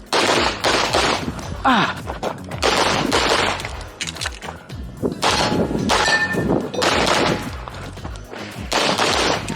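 Competition pistol fired in fast strings of shots, broken by short pauses between target arrays, with steel plates ringing when hit.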